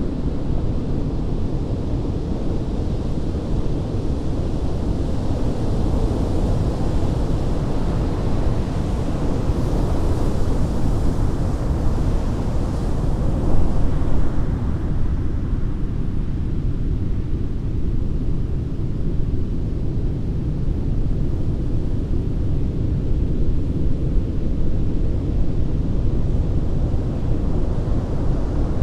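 Ocean surf on a beach: a continuous deep rumble of intense waves, with one wave building and crashing louder about halfway through before settling back to the steady wash.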